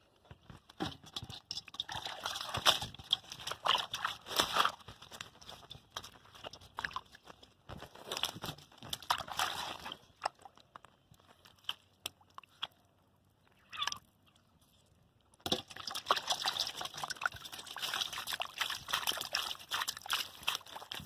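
Muddy water sloshing and splashing in irregular bursts as hands grope through a shallow mud hole, with a lull of a few seconds past the middle.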